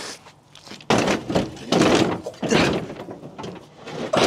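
Steel-framed Razor Crazy Kart XL being heaved up onto a pickup truck's tailgate and bed: a series of heavy thunks and clatters as the metal frame knocks against the truck, starting about a second in.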